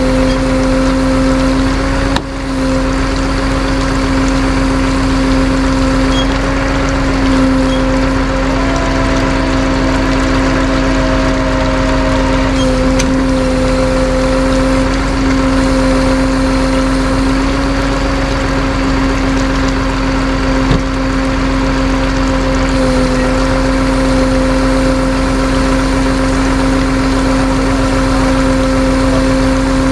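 Vehicle engine running steadily: a constant droning hum that holds one pitch, dipping slightly now and then.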